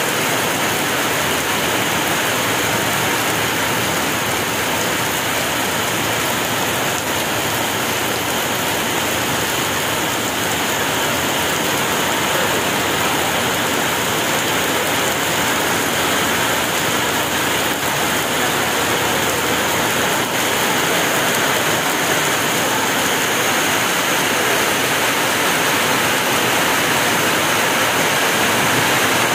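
Heavy rain pouring onto flooded ground and pavement: a steady, dense hiss of water that grows a little louder over the last several seconds.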